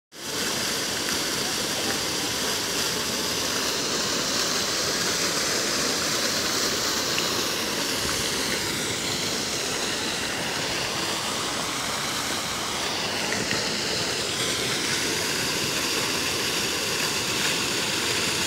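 Water fountain's central jet and ring of arcing jets splashing into the pool, a steady rush of falling water.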